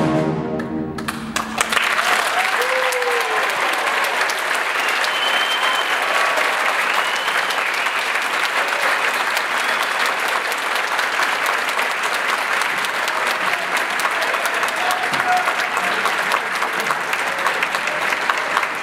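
The wind ensemble's final chord dies away in the first second. Then the audience breaks into sustained applause, with a few cheers.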